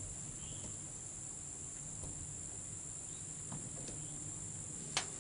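Steady high-pitched drone of an insect chorus in summer woods, with a single sharp click near the end.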